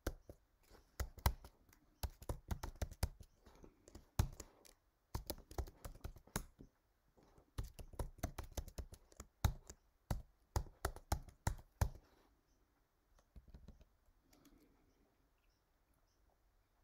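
Typing on a computer keyboard in quick runs of keystrokes, thinning out to a few scattered taps after about twelve seconds.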